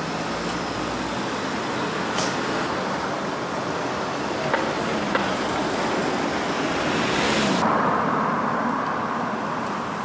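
Street traffic on a city avenue: a steady wash of car engines and tyre noise, with a few light clicks.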